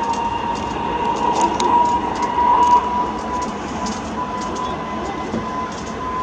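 Airbus A320neo turbofan engines heard from a distance: a steady whine that rises slowly in pitch as thrust builds for the takeoff roll, over a low rumble. Scattered faint clicks sit on top.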